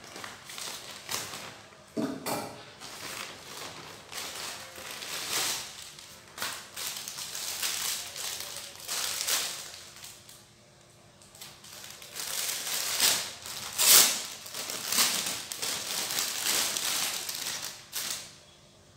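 Plastic parcel packaging crinkling and rustling in irregular bursts as a delivery pouch is cut open with scissors and a plastic-wrapped garment is unwrapped and unfolded. The loudest crackle comes about fourteen seconds in.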